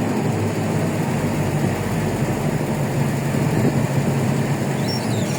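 A vehicle's engine running steadily with road noise while it drives up a long elevated ramp. It is an even low hum carrying a few steady low tones.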